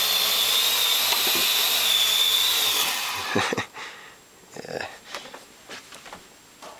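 Parrot AR.Drone quadcopter hovering, its four rotors giving a steady high whine. A little over three seconds in the motors stop and it comes down onto a bed with a couple of knocks, leaving only faint clicks.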